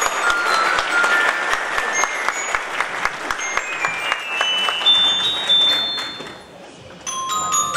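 Audience applauding in a hall, fading out about six seconds in. Near the end, a few bell-like chiming notes begin.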